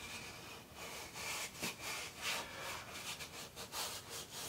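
Fingers rubbing and sliding along a bicycle tire's rubber, searching it for the cause of a flat, in a run of soft scuffing strokes.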